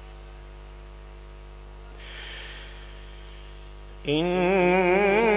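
A steady electrical hum through the sound system, then about four seconds in a man's voice comes in loud over the microphone, holding a long melodic note whose pitch wavers up and down: melodic Quran recitation (tilawat).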